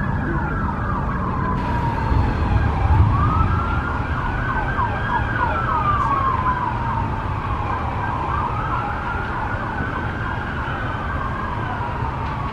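Emergency vehicle sirens: a slow wail rising and falling every few seconds, overlaid with a faster, rapidly sweeping siren, over a steady low rumble.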